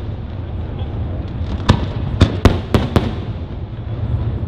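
Firework shells bursting in a display: about five sharp bangs in quick succession, starting a little under two seconds in, over a steady low rumble.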